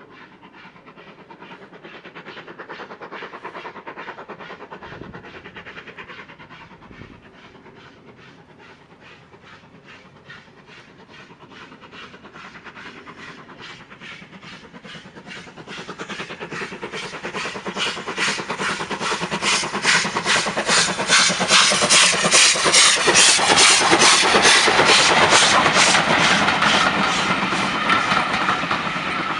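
Steam locomotive hauling a train, its exhaust beating in a steady, even rhythm with hiss. Faint at first, it grows much louder about halfway through and is loudest in the last third.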